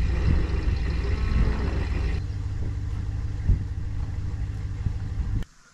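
An engine idling steadily with a deep, even hum that turns duller about two seconds in, with a single light knock partway through, and cuts off suddenly near the end.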